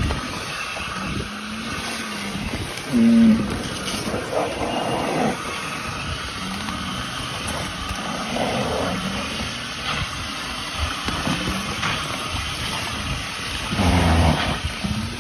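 Young cattle licking and slurping at the top of a plastic tub, their tongues rasping in repeated bouts, with a few short low vocal sounds, one loud about three seconds in. Wind rumbles on the microphone.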